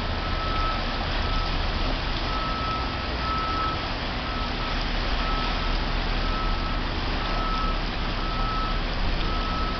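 Brown floodwater rushing steadily past in a swollen stream. Over it, a single-pitched backup-alarm beep repeats at about one beep a second.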